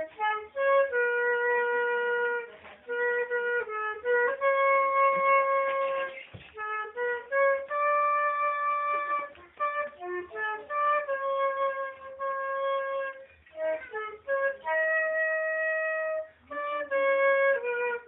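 Solo transverse concert flute playing a slow melody of long held notes, in phrases with short breaks for breath between them.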